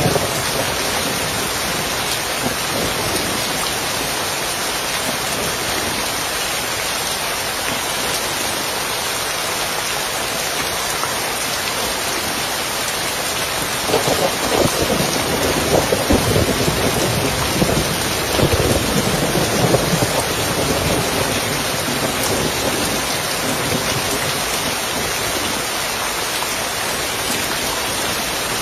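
Steady rain falling on a roof, an even hiss throughout. About halfway through, a rumble of thunder rises and rolls on for several seconds.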